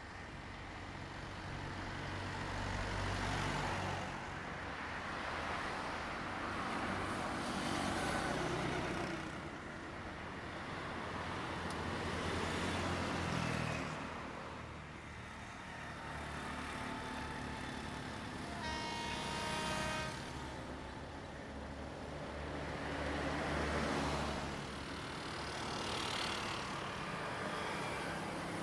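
Road traffic going past, swelling and fading every few seconds, with a vehicle horn sounding briefly about two-thirds of the way in.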